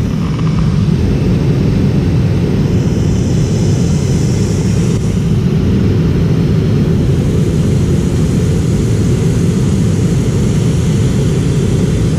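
Steady in-cabin noise of a McDonnell Douglas MD-88 airliner in flight: a low, even rumble of airflow and the drone of its tail-mounted Pratt & Whitney JT8D turbofans, with a faint hiss above it.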